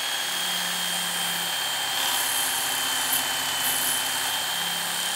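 Work Sharp Ken Onion Edition belt sharpener running with a steady high whine, its abrasive belt grinding the edge of a pair of pruning shears.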